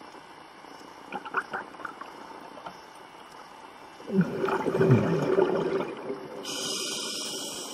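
Scuba regulator breathing underwater: a loud gurgling rush of exhaled bubbles about four seconds in, then a steady hiss of air drawn through the regulator near the end. A few faint clicks come earlier.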